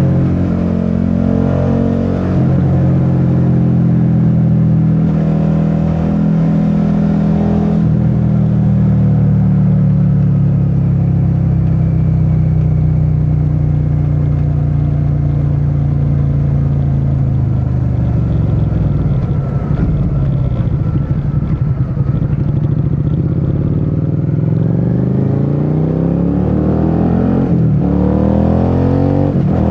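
Suzuki SV650's V-twin engine running under a rider: its pitch sinks slowly as the bike slows, goes low and uneven for a few seconds around the twenty-second mark, then climbs as it accelerates, with a short break at a gear change near the end.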